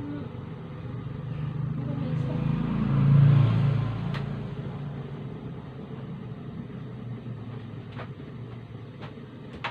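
A motor vehicle passing by: its low engine rumble swells to a peak about three seconds in, then fades away. A few sharp clicks follow later.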